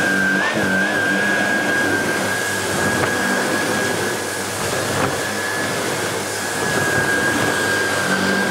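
Miele Revolution 500 S556 cylinder vacuum cleaner running, its floor head pushed back and forth over carpet, with a steady high motor whine.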